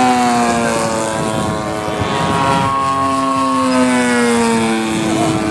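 Radio-controlled model aerobatic plane's motor and propeller droning in flight. The pitch drops, climbs again about two seconds in, then drops once more near the end.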